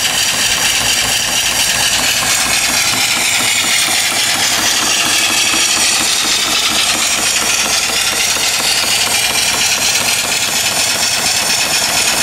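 Small stationary steam engine with a vertical boiler running steadily at speed, a fast even beat of exhaust chuffs under a constant hiss of escaping steam. It is belt-driving a generator that is charging a battery.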